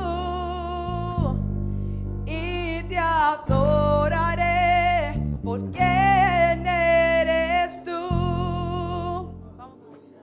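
Live church worship music: a singer holds long notes with vibrato over sustained bass and chords. The music fades out near the end.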